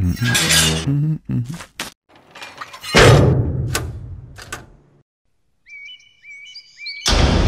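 A heavy metal vault hatch slams shut with a loud clang that rings out, followed by a few sharp clicks of its locks being fastened. After a brief silence, a bird chirps a few times, and near the end loud, ominous, rumbling music swells in.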